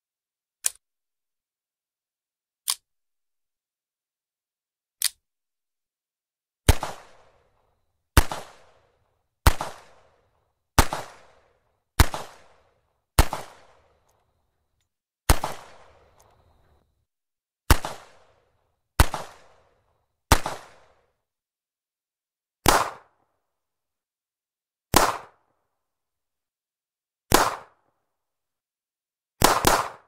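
Single gunshots from a .38 revolver. Three short, dry cracks come in the first five seconds. Then about fifteen louder shots follow, one every one to two seconds, each with a short echoing tail. The last two come in quick succession near the end.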